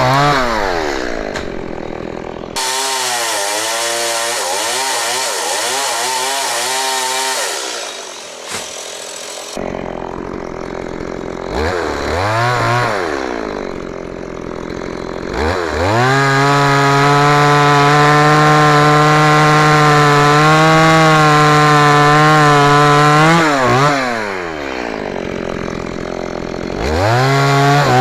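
STIHL MS 170 small two-stroke chainsaw at work on mango wood. It falls to idle at the start, then runs hard under a loud rasping hiss for several seconds. After a short rev it is held at full throttle for about eight seconds, drops back to idle, and revs up again near the end.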